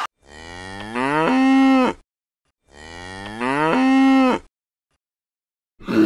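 Cow mooing twice: two identical long moos, each rising in pitch and then held on a steady tone.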